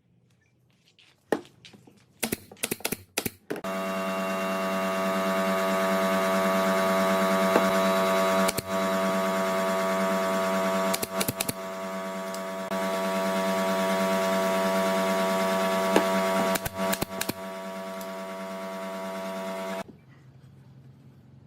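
A small electric motor, most likely a woodworking power tool, running steadily with a whine for about sixteen seconds, dipping briefly a few times, with a few sharp clicks before it starts and after it stops.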